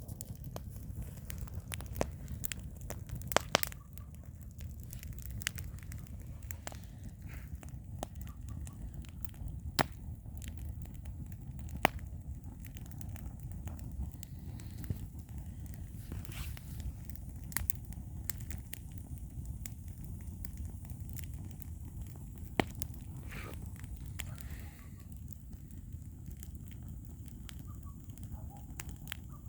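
Campfire wood burning with irregular sharp crackles and pops, a few of them loud, over a steady low rumble.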